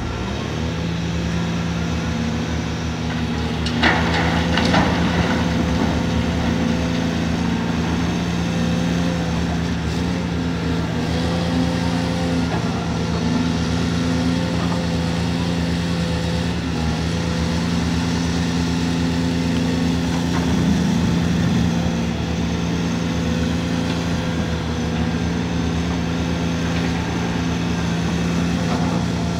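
Caterpillar 340D2 L hydraulic excavator's diesel engine running at steady high revs while loading coal, its pitch stepping up just after the start. A short loud clatter about four seconds in, as the bucket drops its coal into the dump truck's bed.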